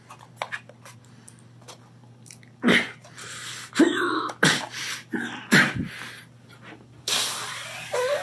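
Hands prying at a clear plastic pen case, with small clicks and knocks of the plastic, then strained grunts and, near the end, a long, forceful breath blown out in effort.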